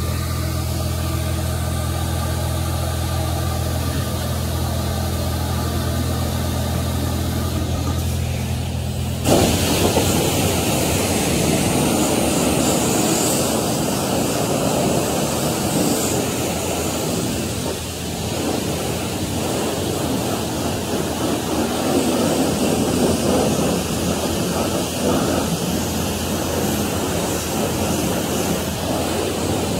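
A steady machine hum for about the first nine seconds. Then the self-serve car wash's high-pressure spray wand opens with a sudden loud hiss of water jetting onto a pickup truck's body and tyres, and it keeps spraying.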